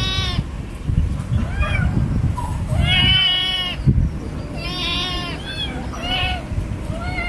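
Kittens meowing: a string of about seven high, rising-and-falling meows, the longest and loudest about three seconds in, over low rumbling handling noise.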